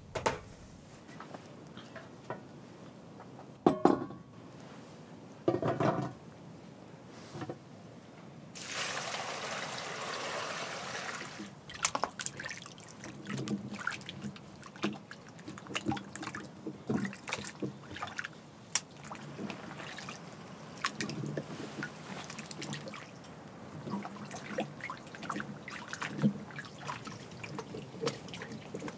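Hands-on cooking sounds: two sharp knocks about four and six seconds in, then liquid pouring for about three seconds, followed by a long run of small wet clicks and taps.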